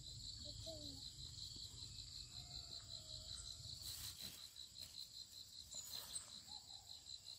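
Insects chirring steadily with a fast, even pulse. A brief rustle comes about four seconds in.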